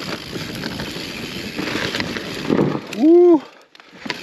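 Mountain bike tyres rolling and rattling over loose volcanic rock and gravel on a descent. About three seconds in the rider lets out a short, loud exclamation that rises and falls in pitch, after which the rolling noise drops away almost entirely for about half a second.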